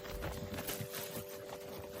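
Steps clicking irregularly on a hard surface, a few to a second, over a steady hum.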